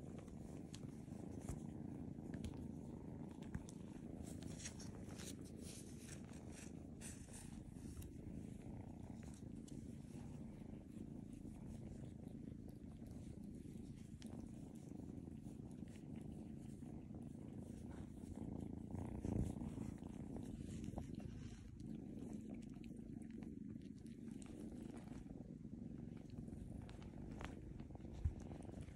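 Kitten purring while being stroked, a steady low rumble, with a brief louder bump about two-thirds of the way through and a single sharp click near the end.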